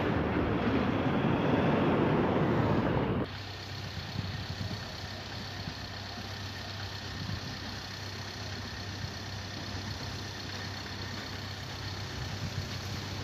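Electric multiple-unit train, a Class 375, passing at speed with a loud, even rush of wheel and rail noise for about three seconds. It cuts off abruptly, leaving a quieter steady background hum of traffic.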